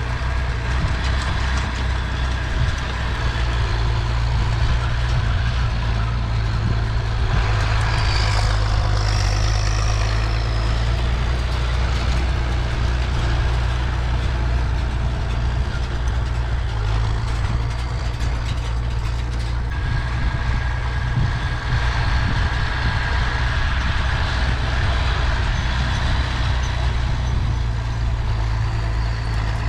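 Farm tractor engine running steadily at a constant speed, pulling a hay rake.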